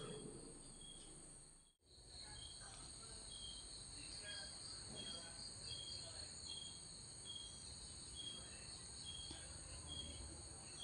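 Cricket chirping faintly, short high chirps about twice a second over a steady high insect drone. The sound drops out for a moment about two seconds in.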